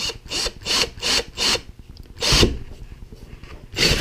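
Cordless drill's keyless chuck being twisted by hand in a row of short rasping strokes, about two or three a second. About four seconds in, the drill starts and a 1-inch spade bit begins boring into a plastic storage box.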